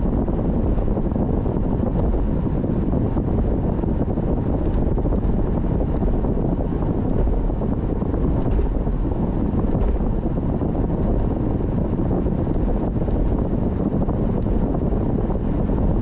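Steady low rumble of road and wind noise from a car driving, with a few faint ticks.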